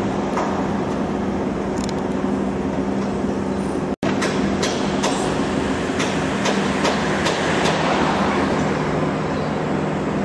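A steady machine hum under a broad rumble, with scattered light clicks and knocks; the sound drops out for an instant about four seconds in.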